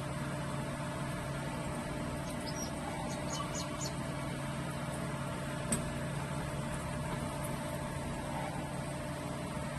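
Steady low background hum, with a few faint, short, high chirps about three seconds in and a single soft click a little later.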